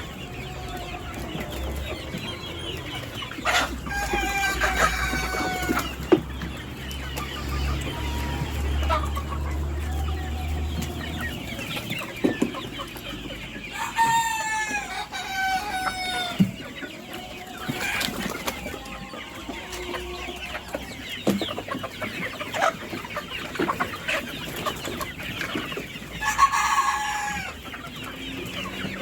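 A flock of desi chickens clucking throughout, with a rooster crowing three times: a few seconds in, midway, and near the end.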